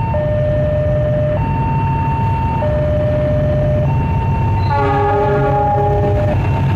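A railway level-crossing alarm sounds a steady two-tone signal, switching between a low and a high tone about every second and a quarter, over the low rumble of a rail vehicle. Nearly five seconds in, a train horn blows one chord-like blast lasting about a second and a half.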